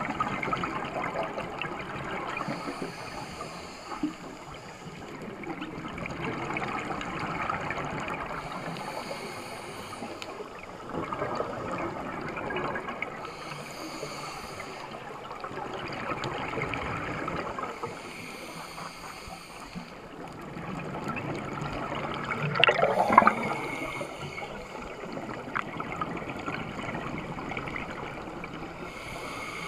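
Scuba diver breathing through a regulator underwater: a hiss on each inhale about every five seconds, alternating with the gurgle of exhaled bubbles, loudest just over three-quarters of the way through.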